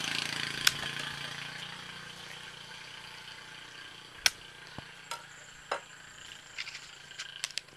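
A bolo knife cutting a green banana leaf midrib, with one sharp crack about four seconds in and smaller snaps and clicks as the stalk is handled, over a hiss that fades away.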